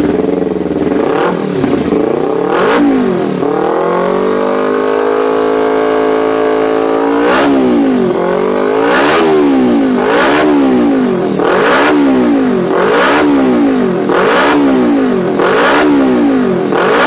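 Kawasaki Ninja 250's parallel-twin engine being revved while standing: a couple of revs, a longer rev that climbs and holds for a few seconds, then a run of quick throttle blips about every second and a half. The throttle response is being tried out with a newly fitted racing quick-action throttle (gas spontan).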